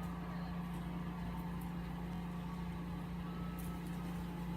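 Steady low hum, unchanging in pitch and level, with a few faint light ticks.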